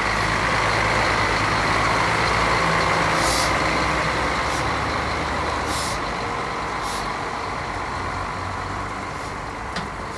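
Heavy trucks' diesel engines running in a steady rumble, with three short hisses of air about three, six and seven seconds in.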